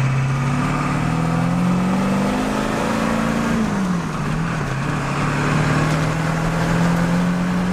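1995 Ford F-350's 7.3-litre Power Stroke turbo-diesel V8 pulling under acceleration, heard from inside the cab. Its note rises, drops sharply about four seconds in as it shifts up a gear, then rises again and holds steady.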